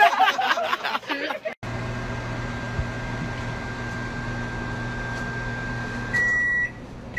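Over-the-range microwave oven running with a steady hum, then one electronic beep about six seconds in as it finishes its cycle.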